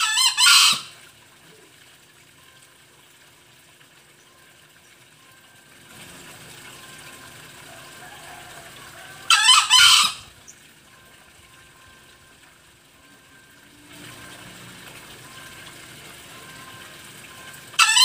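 Green junglefowl cock crowing: three short, high-pitched crows under a second each, about nine seconds apart, the last at the very end.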